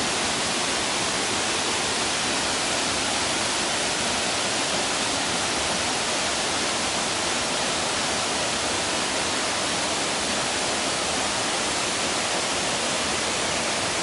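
Steady, even rushing of a waterfall, a constant hiss that does not change.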